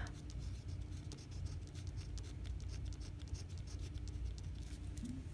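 A pencil scratching faintly on paper in many short strokes as it writes out a word.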